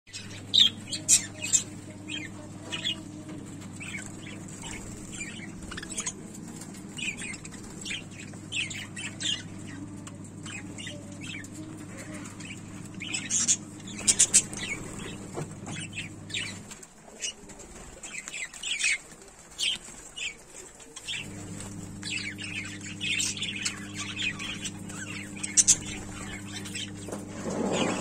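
A flock of budgerigars chirping and chattering, many short high calls overlapping without pause. A steady low hum runs underneath and drops out for about four seconds past the middle.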